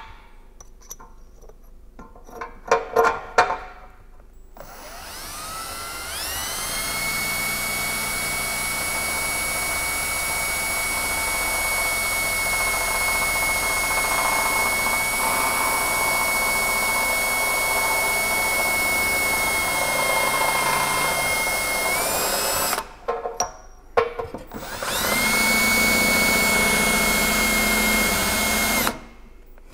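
Cordless drill boring a tap-drill hole into an aluminium oil pan. The motor spins up to a long, steady high whine, stops, gives a few short trigger pulses, then runs again for several seconds near the end.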